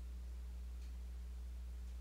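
Steady low electrical hum with faint hiss, and no other sound: the background tone of the recording.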